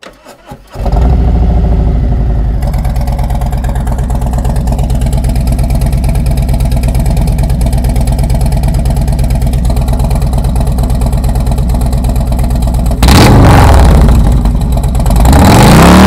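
2018 Harley-Davidson Road King Classic's Milwaukee-Eight V-twin started through Tab Performance 50-caliber mufflers with Zombie baffles. It cranks briefly, catches about a second in and idles steadily, then is revved hard twice near the end.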